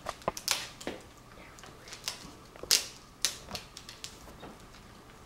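Tape being peeled off a laptop screen's small video-cable plug, with the panel handled: irregular small clicks and short crackles, the loudest about two and three seconds in.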